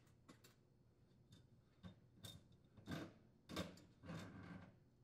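Faint metal clicks and scrapes of an oven broil element being unhooked from its retaining hooks and pulled away from the oven's rear wall, a few separate handling sounds, the fuller ones in the second half.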